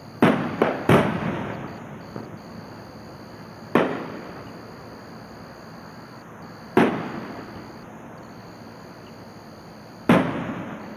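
Distant aerial fireworks shells bursting: three booms in quick succession just after the start, then single booms about 4, 7 and 10 seconds in, each trailing off in a rolling echo.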